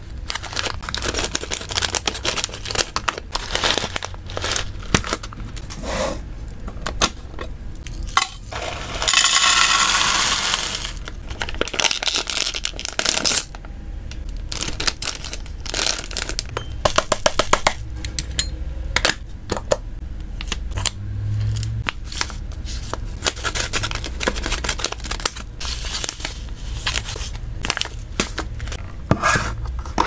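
Crinkly plastic snack bag handled and rustled, with one long tear about nine seconds in lasting some two seconds. There are many sharp clicks and crackles throughout, and a quick run of clicks about seventeen seconds in.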